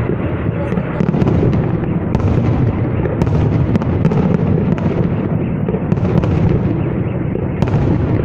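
Fireworks salute going off: a continuous low rumble of overlapping bursts, with frequent sharp cracks scattered through it, one or two a second.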